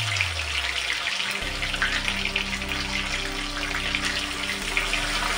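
Onions frying in hot oil in a steel kadhai, sizzling steadily. Near the end ginger-garlic paste is poured in from a bottle and the sizzling gets a little louder.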